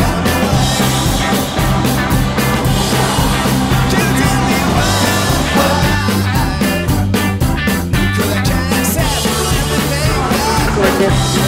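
Background rock music with a steady drum beat and a stepping bass line.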